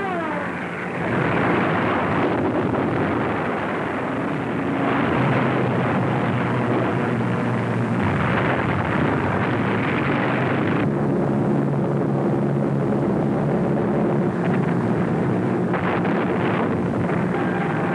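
Piston-engined bomber aircraft droning over a dense roar. A whistle falls steeply in pitch in the first second, and another begins near the end, typical of falling bombs.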